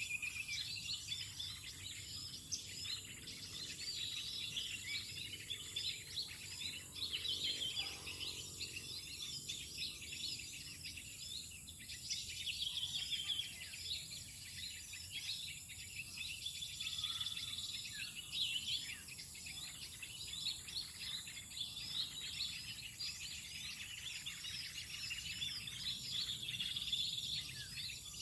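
Many small birds chirping and calling at once, a dense overlapping chatter, over a steady high insect-like whine.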